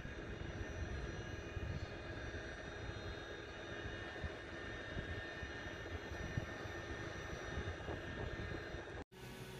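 A parked truck running steadily: a low, uneven rumble under faint steady whining tones. It cuts off abruptly near the end.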